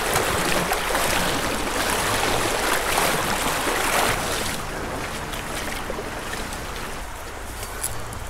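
Fast, shallow river riffle rushing over rocks: a steady, loud splashing hiss that drops to a softer background about four and a half seconds in.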